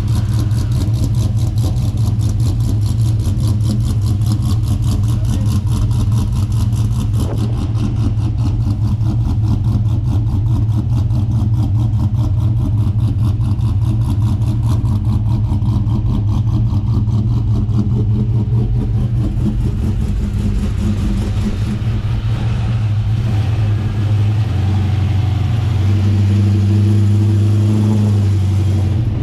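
LS1 V8 engine running steadily, then rising in pitch and holding higher near the end.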